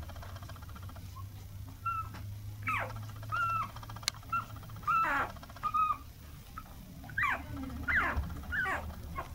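Toy poodle puppy whimpering and squeaking: about a dozen thin, high calls, some short and level, others quick falling whines, over a low steady hum.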